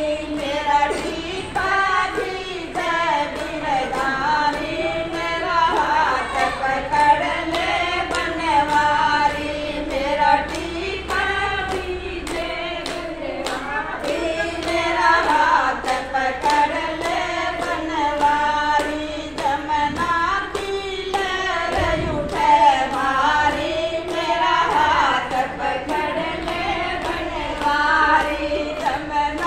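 Gujari bhajan sung by a group of voices, with sharp hand claps keeping a steady beat of about two a second.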